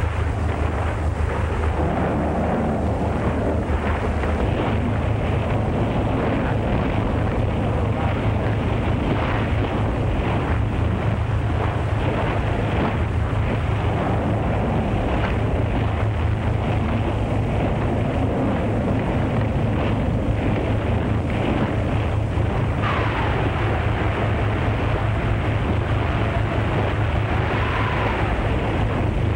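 Storm at sea on an old film soundtrack: a steady rush of wind and breaking waves with a low rumble underneath, and a wind howl gliding down in pitch about two-thirds of the way through.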